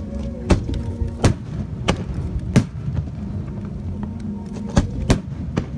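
Aerial firework shells bursting in a display: six sharp bangs, four about two-thirds of a second apart in the first half and two close together near the end, over steady music.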